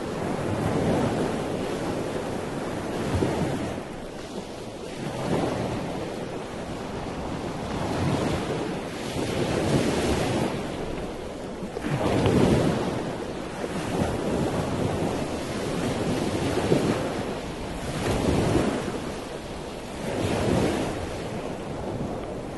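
Outdoor rushing noise, swelling and easing in surges every two seconds or so.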